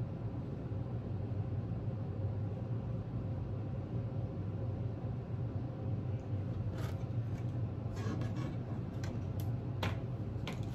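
Steady low background hum. In the last four seconds a few soft, short clicks and smacks come from the mouth while chewing a bite of cheeseburger.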